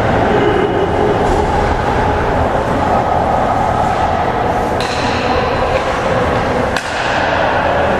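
Steady loud din of an indoor ice hockey rink during play, with two sharp knocks from the play on the ice about five and seven seconds in.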